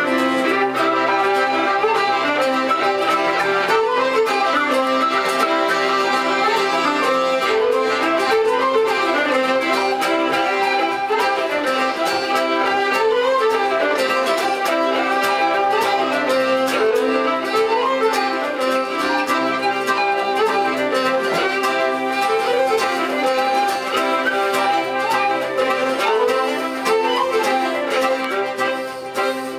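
Folk band playing a tune together: two fiddles lead with tin whistles, backed by strummed acoustic guitar and piano accordion.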